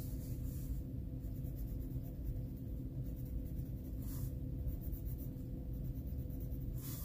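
Colored pencil scratching on the paper of a coloring book as it shades in short strokes, with louder scrapes about four seconds in and at the end, over a steady low hum.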